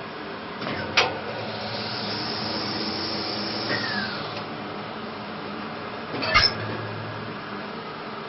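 Handling noises from taking apart a capsule coffee machine: a sharp click about a second in, a few seconds of high hiss, then a short clatter of parts a little after six seconds in.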